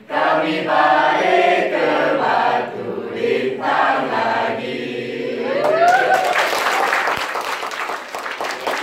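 A group of young men and women singing together, then clapping that breaks out about six seconds in while the singing trails off.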